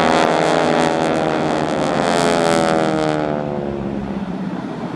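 Aircraft flying past low. Its engine note slides down in pitch as it passes, and the sound thins out and fades after about three seconds.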